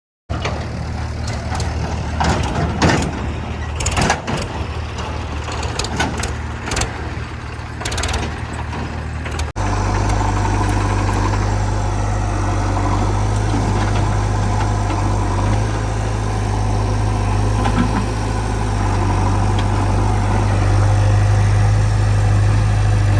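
Diesel engine of heavy machinery running, with sharp knocks and clatter over it for the first nine or so seconds. After an abrupt cut it settles into a steady low engine drone.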